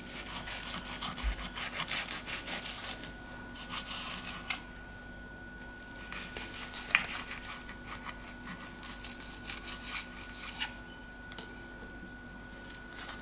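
Knife sawing back and forth through toasted garlic cheese bread on a wooden cutting board, in several spells of quick rasping strokes through the crisp crust.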